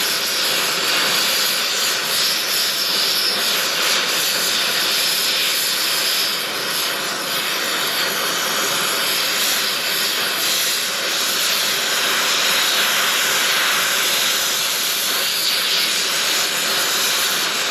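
A loud, steady rushing hiss that runs without a break, swelling and easing slightly.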